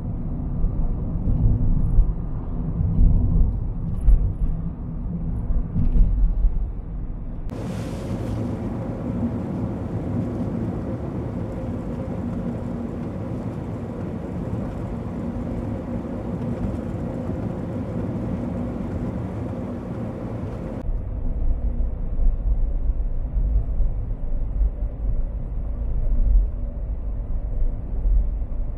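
Road and wind noise from a moving compact car: a steady low rumble with occasional bumps. It changes abruptly about seven seconds in to a smoother, brighter hiss, and back to the rumble about two-thirds of the way through.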